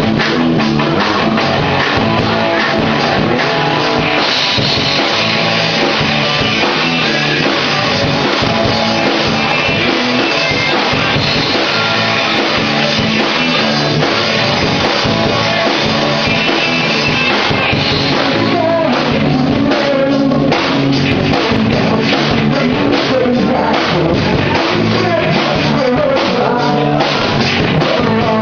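Rock band playing a song live, with drum kit, guitar and singing. The cymbals get brighter about four seconds in, and the arrangement changes about eighteen seconds in.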